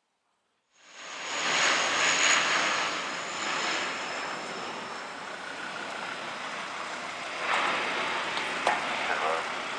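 Dash 8 twin-turboprop airliner passing low overhead on approach, its engines and propellers running with a high steady whine. The sound cuts in suddenly about a second in, is loudest a second or so later, then holds steady.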